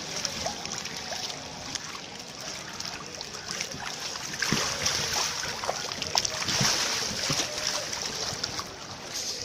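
Water sloshing and splashing as a person crawls inside an inflatable water-walking ball on a shallow pool, a steady wash with many small sharp taps.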